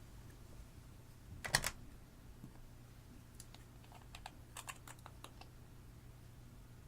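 Sharp clicks and taps: a quick cluster of loud clicks about a second and a half in, then a scattered run of lighter clicks a couple of seconds later, over a faint steady hum.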